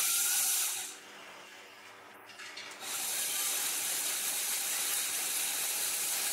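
A small LEGO Technic electric motor drives the hoist's gears along toothed rack columns under a heavy water load, with a steady high whirring hiss. It stops for about two seconds, with a few faint clicks in the pause, then runs again a little quieter.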